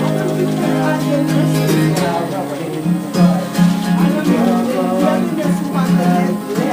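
Live acoustic guitar playing a song's accompaniment, with a melody moving over steady chords.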